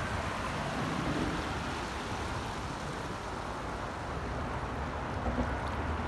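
Steady rush of creek water running high with spring flow.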